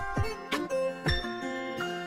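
Background instrumental music: held melodic notes over a few low drum hits.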